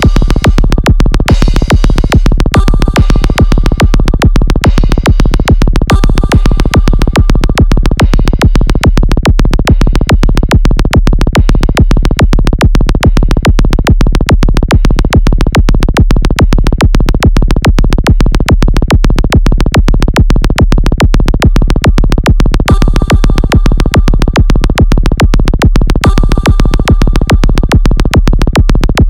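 Electronic dance music: a fast, steady kick-drum beat under synthesizer lines, coming in suddenly after a brief gap.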